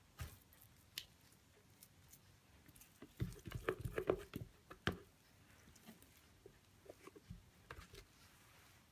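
Thick cold-process soap batter that has thickened too fast (accelerated trace) being spooned and dropped into a silicone-lined wooden loaf mould: soft wet plops and scrapes, with a quick run of them about three to five seconds in.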